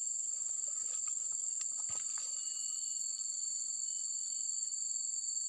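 Steady, high-pitched insect chorus holding two even tones without a break, with a few faint ticks about two seconds in.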